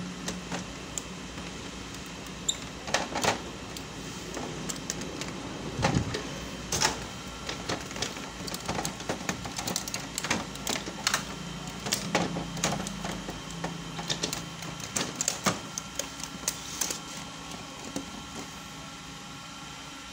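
Irregular plastic clicks, knocks and rattles as parts inside an opened Kyocera ECOSYS M6630 colour laser printer are handled and the drum units are lifted out, over a faint steady hum.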